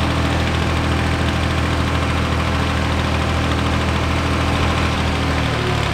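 An engine idling steadily, with an even low note that shifts slightly near the end.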